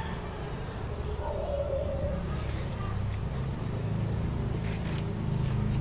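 Birds chirping over a low rumble that grows louder near the end.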